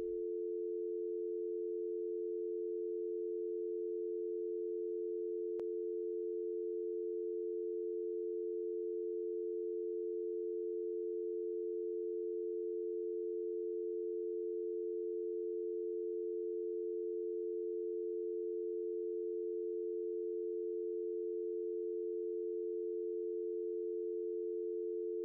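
Telephone dial tone: two steady tones sounding together as one continuous hum, with one faint click about five and a half seconds in.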